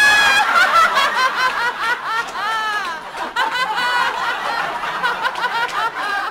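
A woman laughing loudly and without a break, in high peals that rise and fall. It is the deliberate, open laughter of laughter yoga.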